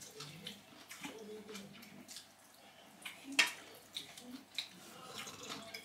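People eating at a table: soft wet chewing and mouth sounds with scattered light clicks of dishes and cutlery, the sharpest about three and a half seconds in, under faint low voices.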